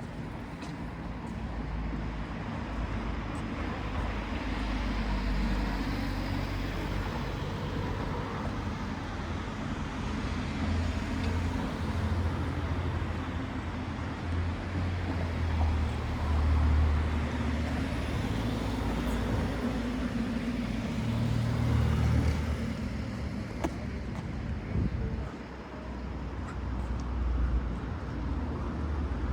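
Street traffic: cars passing, a low rumble that swells and fades several times, loudest about two-thirds of the way through.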